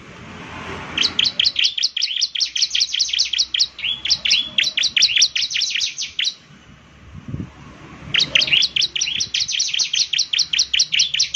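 Bar-winged prinia (ciblek) singing: a rapid trill of sharp high chirps, about ten a second, in two long bursts with a pause of about two seconds in between.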